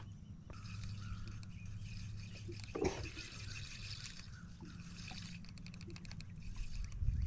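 Spinning reel being wound slowly, with faint ticking from the reel and light water sounds against the boat, over a low steady hum. A single soft knock comes about three seconds in.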